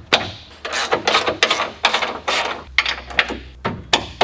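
Socket ratchet wrench clicking in repeated back-and-forth strokes as the bolts of an aluminium winch fairlead are loosened for its removal.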